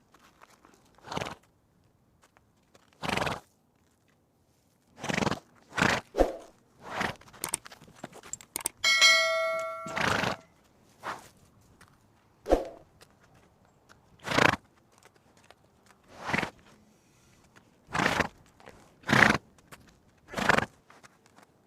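Zebra calling: a string of short, sharp barking calls, one every one to two seconds with quiet gaps between. A steady ringing tone sounds for about a second, about nine seconds in.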